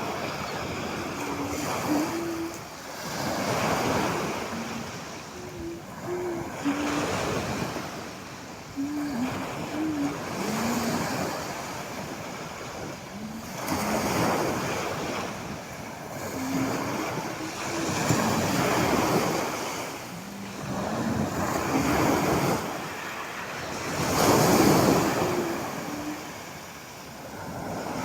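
Sea waves washing onto the shore, the surf swelling and falling away every three to four seconds, with some wind on the microphone.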